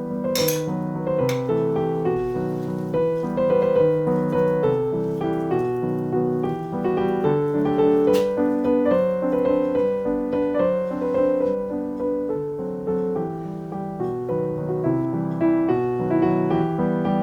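Background piano music, a steady melody of sustained notes, with a few sharp clicks about a second in and once about eight seconds in.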